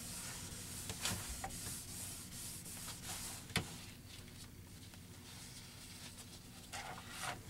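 Cotton rag rubbing wood stain onto an oak tabletop, a soft faint scrubbing that eases off about halfway through. A few light clicks, the sharpest about three and a half seconds in.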